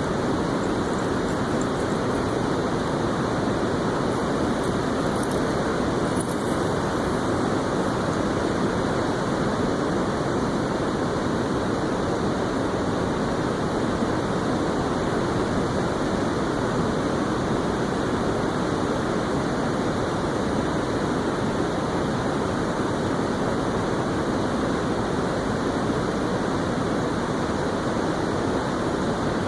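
Steady rushing noise with no pitch to it.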